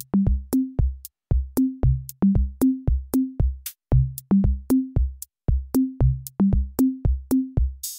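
Background music: an electronic drum-machine beat of pitched bass-drum thumps that step upward in pitch in short runs, each with a sharp click on top.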